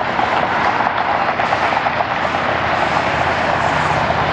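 Boeing 777-300ER's twin GE90 jet engines running at low taxi thrust: a steady, loud roar with no breaks.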